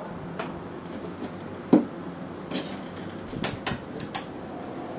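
Small steel parts clinking and knocking as a bolt is fitted through a slotted angle plate onto a TV wall-mount bracket: a dull knock a little under two seconds in, then several sharp metallic clicks.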